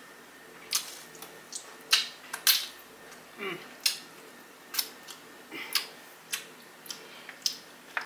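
Close-miked mouth sounds of someone biting and chewing a seasoned chicken wing dipped in buffalo sauce: a string of sharp, irregular wet clicks and smacks. The loudest come about two seconds in.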